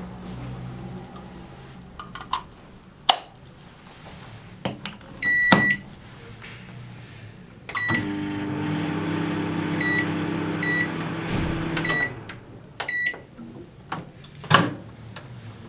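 Russell Hobbs RHM2063B 800 W microwave oven being operated: clicks and a short beep, then the oven runs with a steady hum for about four seconds, several short high beeps sounding around and just after it stops. A sharp click near the end.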